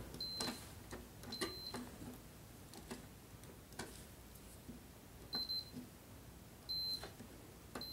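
Continuity tester giving short, high, steady beeps about five times at uneven intervals as its probe touches the rails of a model railroad turnout, with faint clicks of the probe tip on the track; the beeps show the switch's rails are electrically connected.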